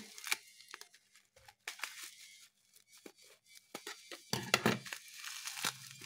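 Clear plastic wrapping being cut with scissors and then torn and crinkled off by hand, in scattered sharp snips and crackles at first. It turns into denser, louder crinkling in the last couple of seconds.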